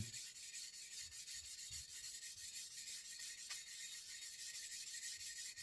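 A Chinese cleaning stone rubbed back and forth in quick, even strokes over the wet face of a whetstone, making a steady gritty hiss. It is cleaning the clogged surface of the sharpening stone, gently rather than aggressively.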